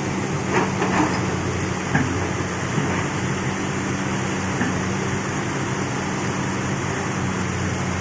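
Hitachi excavator's diesel engine running steadily under load, with a few short knocks in the first two seconds.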